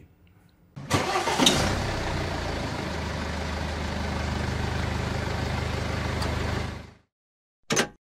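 A car engine starting suddenly and settling straight into a steady idle, then cutting off abruptly.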